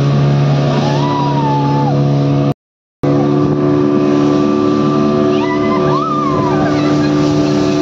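Motorboat engine running steadily under way, a loud even drone. The sound cuts out for about half a second a third of the way in. A higher tone rises and falls briefly twice over the drone.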